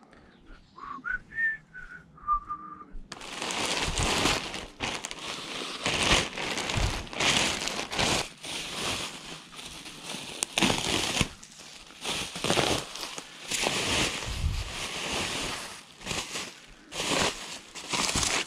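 A few short whistling notes, then from about three seconds in the loud, continuous crinkling and rustling of bubble wrap and plastic packaging being pulled off a new mountain bike, with many sharp crackles.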